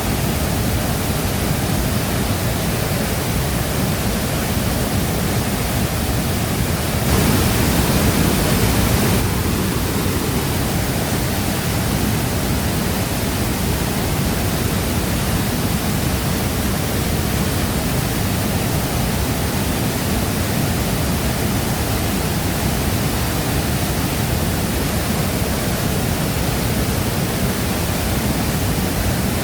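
Shifen Waterfall's water falling in a steady, loud rush, swelling briefly for about two seconds around seven seconds in.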